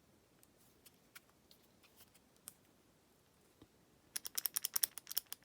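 Small sharp clicks from a Brady 71/40 plastic lockout padlock being worked by hand, then a quick rattling run of clicks about four seconds in as the keyway and shackle are tried to see whether the shackle latches.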